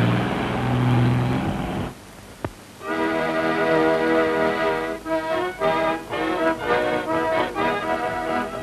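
An old car's engine revs up and runs as the car pulls away, then cuts off about two seconds in. After a click, background music takes over: sustained organ-like chords, which turn into short rhythmic notes from about five seconds in.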